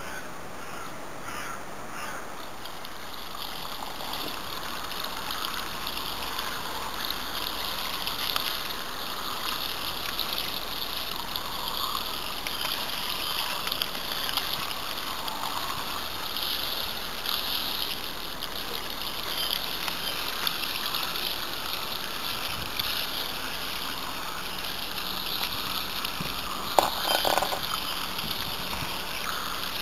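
Loose, seed-like mushroom substrate being stirred with a metal scoop in a steel drum: a steady rustling and scraping, with one sharp knock near the end.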